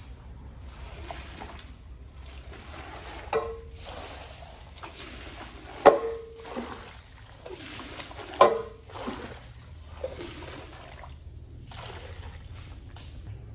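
Rubber floor squeegee pushing soapy rinse water out of a wet area rug, in repeated wet swishing strokes about once a second. Three of the strokes end in a sharp knock with a short squeak.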